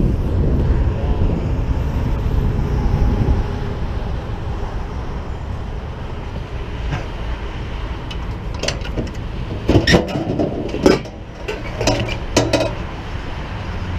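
Steady low rumble of freeway traffic, with a run of sharp clattering knocks of hard objects in the second half.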